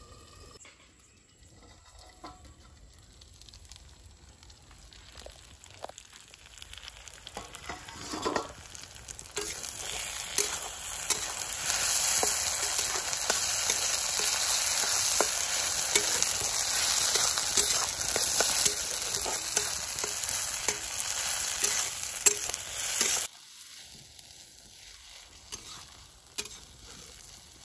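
Snail meat and spices sizzling loudly in an iron wok, a metal spatula scraping and clicking against the pan as it is stirred. The sizzle starts about a third of the way in and cuts off suddenly near the end.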